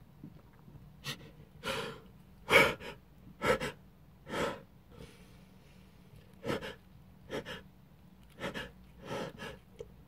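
A person's sharp gasping breaths, about ten in a row with a pause in the middle and the loudest about two and a half seconds in: the catching intakes of a sneeze building up after sniffing ground black pepper.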